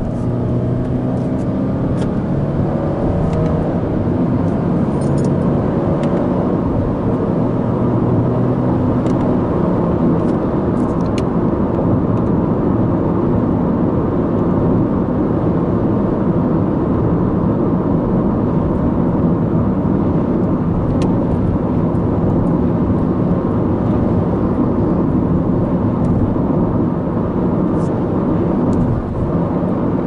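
Subaru Impreza's 1.6-litre FB16 flat-four engine heard from inside the cabin, pulling away and accelerating with a gently rising engine note over the first several seconds. It then settles into steady engine and road noise at speed.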